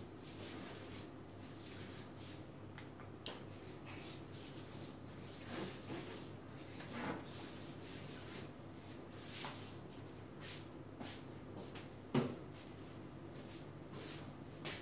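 Hands rubbing massage oil over a bare leg: soft skin-on-skin strokes, with a short knock near the end.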